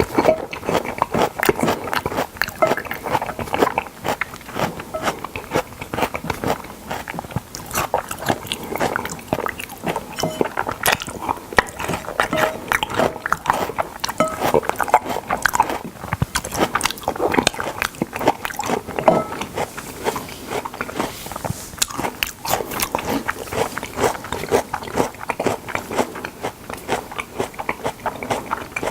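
Close-miked eating of salmon: chewing and biting, with a dense run of quick wet clicks and smacks from the mouth.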